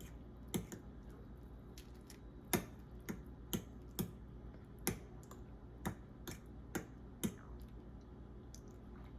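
A utensil clicking against the side of a bowl while stirring beaten egg into hot ramen broth: sharp separate clicks about twice a second, thinning out near the end.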